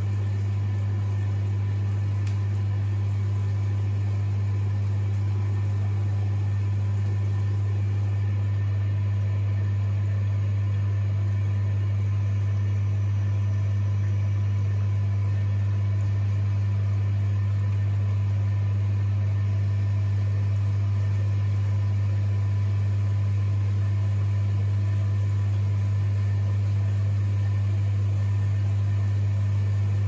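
Beko washing machine giving a steady, even low hum while its drum stays still, with no changes or breaks.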